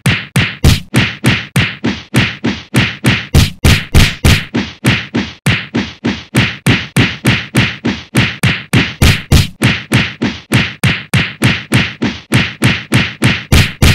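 A rapid, unbroken string of whacking blows, about three or four a second: sound effects of a beating being dealt out.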